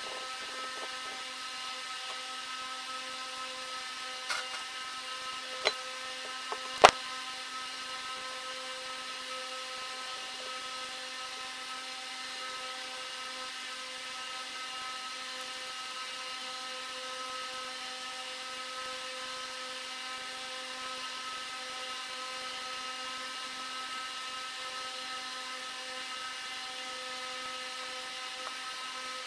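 A steady machine whine of several fixed pitches in the background, with a few sharp clicks of metal parts being handled on an aluminium engine crankcase about four to seven seconds in, the last one loudest.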